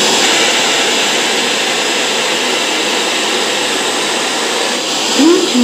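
Steady hiss of FM radio static from two portable Bluetooth speakers, a Zebronics and a TG-series, both switched to FM mode at full volume with no station tuned.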